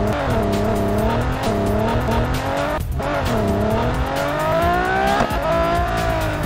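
Race-car engine sound revving up and down in repeated smooth swoops, with a brief break about three seconds in and a higher rev rising and falling near the end.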